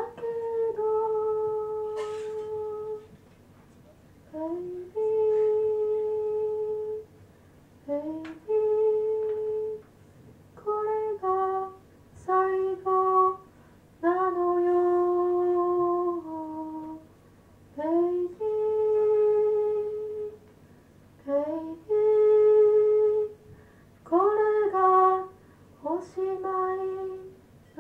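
A single high voice humming a slow, wordless melody with no accompaniment: held notes, each sliding up into its pitch, in short phrases separated by pauses of a second or two.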